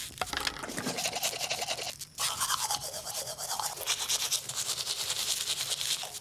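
Teeth being brushed: rapid back-and-forth scrubbing strokes, with a short pause about two seconds in.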